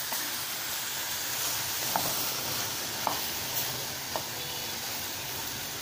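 Chopped vegetables frying in oil in an aluminium pressure cooker: a steady sizzle, with a few light taps of the spatula against the pot.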